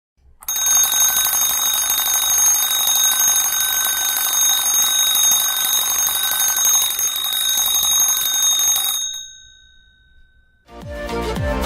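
Electric school bell ringing continuously for about eight and a half seconds, a dense metallic clatter with steady high ringing tones, which linger and fade for a second or so after the striker stops. Music starts near the end.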